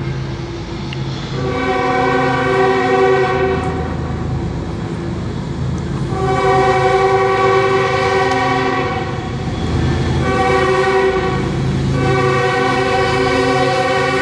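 CSX freight locomotive's multi-chime air horn sounding long blasts for the grade crossing as the train approaches: three long blasts, the third still sounding at the end, over the low rumble of the oncoming locomotive.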